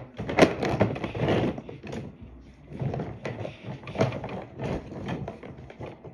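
Close-up handling noise: a run of knocks, taps and rubbing right against the microphone, busiest in the first second and a half and again about three and four seconds in.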